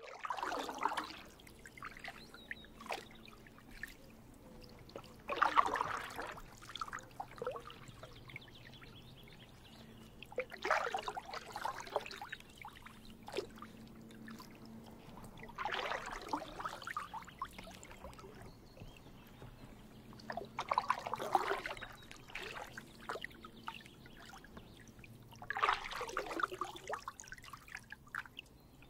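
Kayak paddle strokes in calm water: six slow, evenly spaced strokes about five seconds apart, each a second or so of splashing and water trickling off the blade, with small drips in between.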